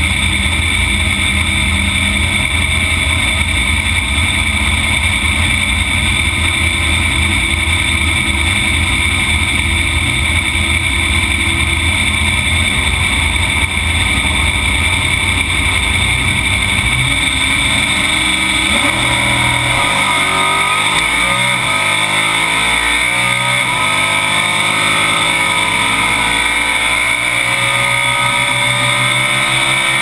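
Chevrolet S-10 Super Stock drag truck's engine, heard from inside the cab. It runs steadily for about the first two-thirds, then the truck launches on a quarter-mile pass and the engine revs up through the gears with a string of rising sweeps.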